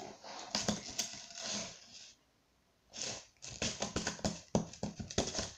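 Soft breathy, rustling noise, then after a short pause a run of quick, irregular clicks, several a second.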